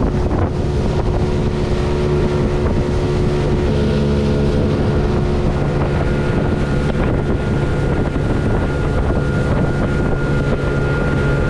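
Outboard motor of a small open boat running steadily at cruising speed, with wind buffeting the microphone.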